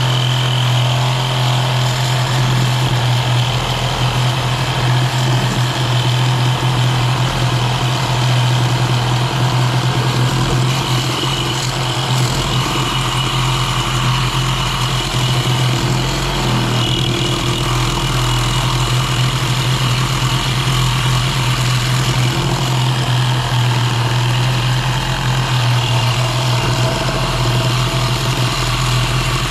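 Milwaukee Sawzall reciprocating saw running steadily without a break as it cuts through a steel mounting bracket that is at least half an inch thick by the owner's reckoning.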